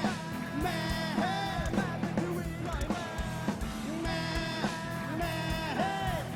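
Live rock band playing, with guitar and a sung melody line that bends and glides in pitch.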